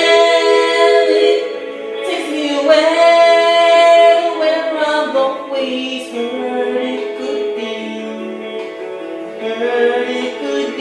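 Music: a woman's voice singing long held wordless notes, with several voices layered in harmony.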